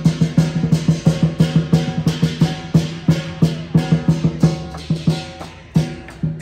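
Music with a quick, steady drum and percussion beat.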